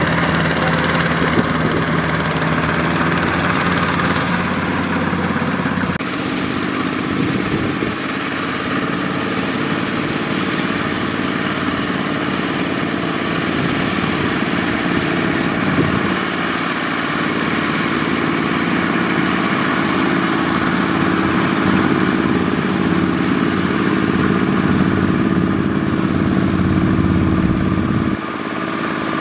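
Two-wheel tractor's single-cylinder diesel engine running steadily as it pulls a loaded trailer through deep mud; its note shifts a few times.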